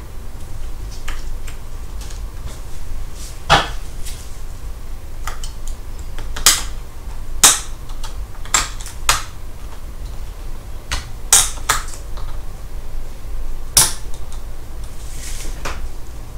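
Irregular sharp clicks and taps as a DDR4 laptop RAM module is pushed down into its memory slot and the slot's retaining clips snap, with gloved fingers handling the parts, over a low steady hum.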